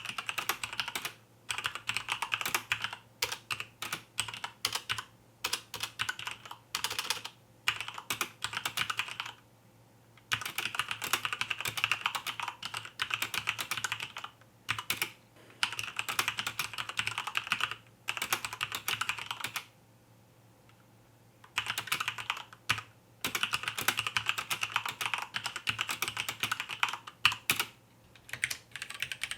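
Typing on a mechanical keyboard with red linear switches, either Cherry MX Red or Gateron Red: fast runs of crisp key clicks with brief pauses between them, and a longer pause a little over two-thirds of the way through. A faint low hum sits underneath.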